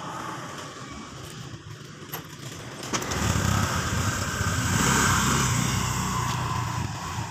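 Honda automatic scooter's engine running up as it pulls away. It grows louder about three seconds in, then eases off as the scooter moves away.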